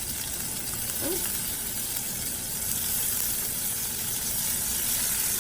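Butter sizzling in a preheated skillet: a steady, even hiss.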